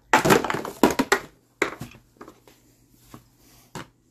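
Plastic food-storage containers knocking and clattering as they are handled and stacked. There is a dense run of clatter in the first second or so, then a few separate knocks.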